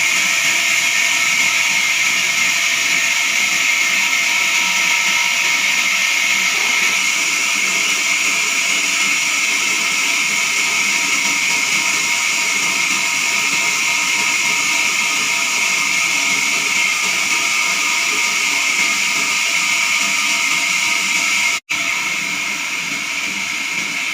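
Horizontal band sawmill blade cutting through a jackfruit log: a steady, loud hiss with a high whine. It breaks off for an instant near the end and carries on slightly quieter.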